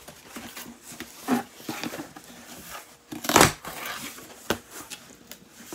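Cardboard box being handled and pulled open by hand: scattered rustles and creases of the cardboard, with one louder, short ripping noise about three and a half seconds in.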